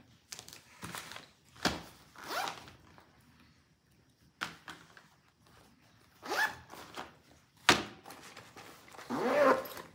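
Zipper of a fabric pencil case being pulled in several short runs, with sharp clicks of small objects set down on a wooden table, the sharpest near the end.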